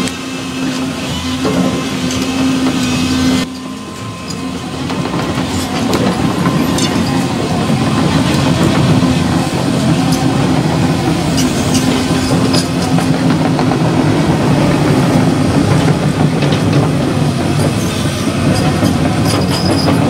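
Volvo tracked excavator's diesel engine running steadily, with clanking and squeaking from its steel tracks as it travels.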